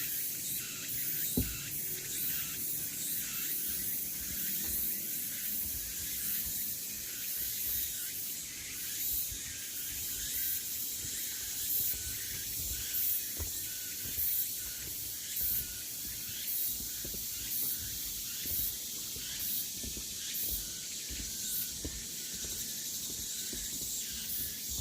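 Cicadas buzzing in a steady, high chorus that pulses in a regular beat, somewhat more than once a second.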